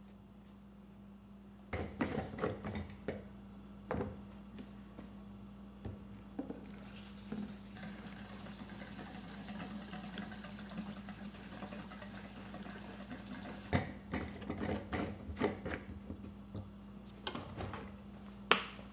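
Gasoline poured from a plastic gas can into a generator's plastic fuel tank: a steady pouring rush for about six seconds in the middle, with clunks and clicks of the can and tank handling before and after it.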